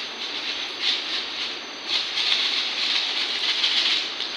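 A plastic snack packet crinkling and rustling as it is shaken, with crisp bhujia sev pattering out onto steel plates, in uneven swells.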